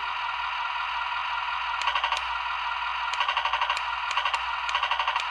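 Heng Long 1/24 M1A2 Abrams RC tank's built-in sound unit playing its simulated IR machine-gun fire: about four short bursts of rapid rattling over a steady electronic engine hum.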